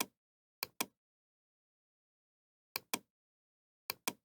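Short, sharp clicks in otherwise dead silence, mostly in quick pairs: one click at the very start, then a pair just under a second in, another near three seconds and another near the end, with uneven gaps between them.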